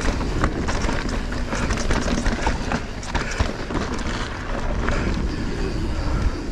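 Mountain bike rolling over dirt singletrack: a steady rumble from the tyres with many small clicks and rattles from the bike over bumps.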